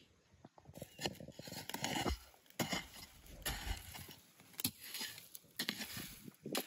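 Hoe chopping and scraping into dry sandy soil around a cassava plant, repeated strikes about once a second.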